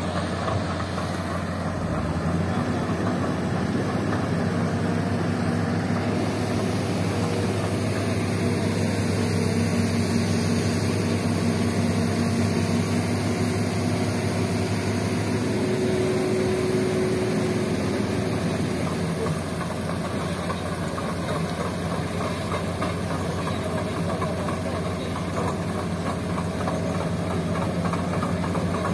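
Diesel engines of a Hitachi hydraulic excavator and a Mitsubishi dump truck running steadily.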